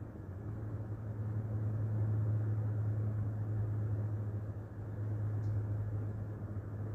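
Steady low hum over a dull rushing noise, with no clear sound of the pencil on paper.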